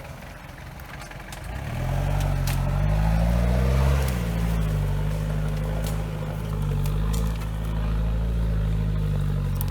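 Off-road 4x4's engine dropping to low revs, then revving up over about two seconds and held at steady high revs, with scattered sharp clicks.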